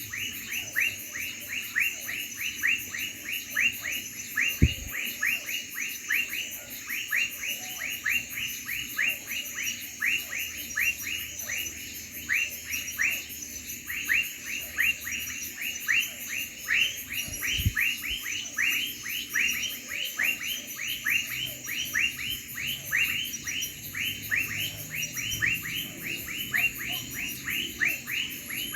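Crickets chirping in a steady night chorus: a rapid high pulsing trill, with a lower call that drops in pitch repeated about three to four times a second. Two dull low thumps, one about four seconds in and one past the middle.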